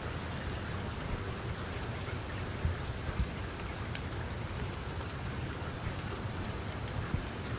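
Steady rainfall with drops pattering on a surface, a few heavier drops landing as low thuds.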